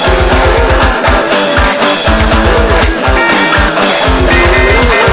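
Garage-punk rock song playing: a fast, steady drum beat under guitar, with a wavering lead melody line.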